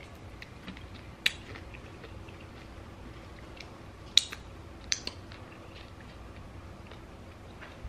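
Close-up mouth sounds of eating chicken wings: quiet chewing with a few sharp wet smacks and clicks as she sucks sauce off her fingers, the loudest about a second in and about four seconds in.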